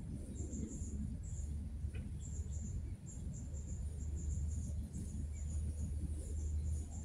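Outdoor ambience: insects chirping in short, high-pitched pips, several a second and unevenly spaced, over a steady low rumble.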